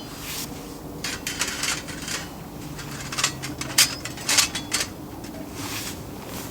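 Clinks and knocks of cookware and utensils being handled, a string of short sharp sounds over a faint steady hum.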